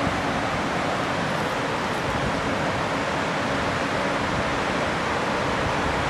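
Steady rushing of whitewater rapids in a fast mountain river, an even roar of water with no breaks.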